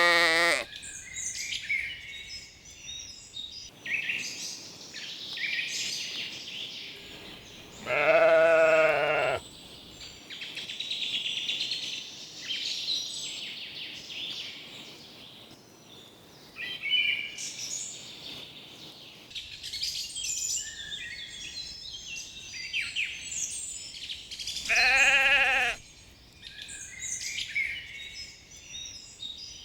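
Sheep bleating: a short bleat at the start, then two longer, quavering bleats about eight seconds and about twenty-five seconds in. Songbirds chirp and sing throughout.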